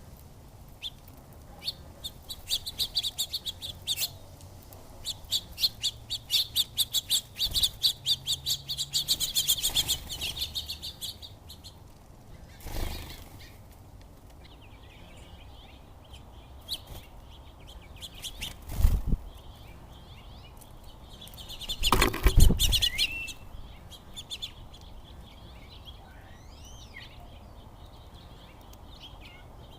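Small feeder birds, sparrows and finches, chirping rapidly and busily for the first ten seconds or so, then more sparsely. A few brief loud rushes of wing flutter come through as birds fly in and out.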